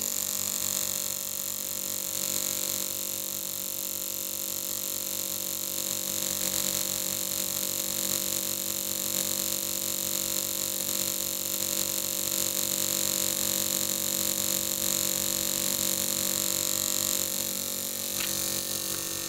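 Induction coil's spark discharge running steadily, a continuous buzz of many tones with a fast even flutter, as the spark jumps between the electrodes and burns through a sheet of paper.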